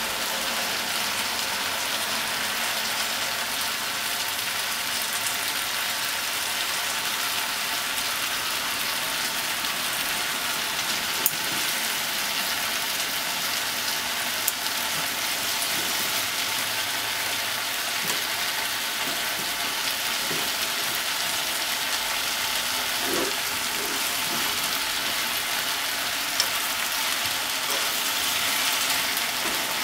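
Pork, potatoes, carrots and onion sizzling steadily in a pot, with a few sharp clicks as wooden chopsticks turn the food.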